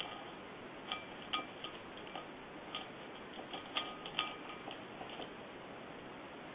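Light, irregular clinking of small hard objects: about a dozen taps scattered across a few seconds, each with a brief ringing note.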